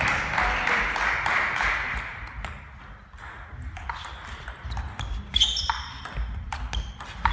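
Table tennis ball clicking and pinging as it bounces on the table and is struck by bats, in a string of sharp knocks that come thicker in the last few seconds as a rally gets going.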